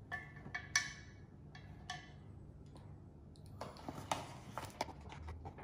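Light clicks and rustles of a measuring scoop dug into a paper bag of flour and tipped into a plastic measuring jug, a few at first and busier after the midpoint.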